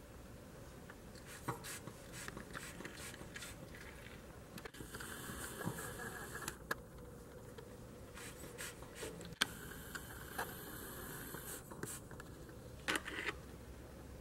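Faint scratchy rustling and scattered clicks, with two stretches of whirring hiss of about two seconds each: a camcorder's zoom motor zooming in and then back out.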